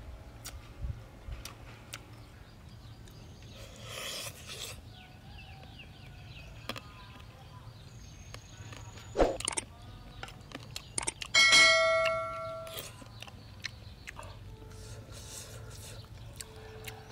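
Close-up eating sounds of a man chewing deep-fried frog and picking pieces from a plate with his fingers, with scattered small clicks. A sharp click comes about nine seconds in, and about eleven and a half seconds in a loud ringing, bell-like clink fades out over about a second.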